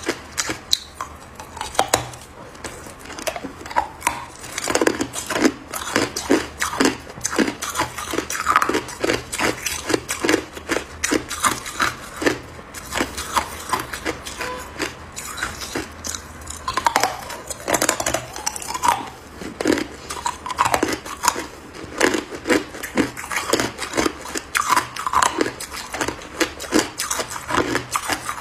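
A chunk of hard clear ice being bitten and chewed, a quick irregular run of sharp crunches and cracks, several a second.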